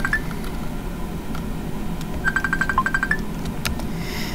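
Repeating electronic beep pattern: a quick run of short high beeps at one pitch, with one lower and one higher beep mixed in. It ends right at the start and comes again about two seconds in, over a steady low hum.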